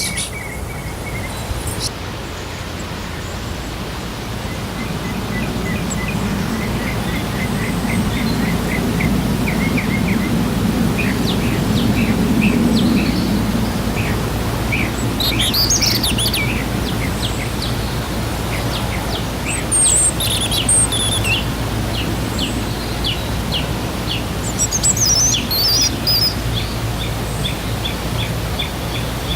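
Steady rush of a waterfall with a young bird calling over it in long runs of short, quick chirps, and a few higher trills now and then.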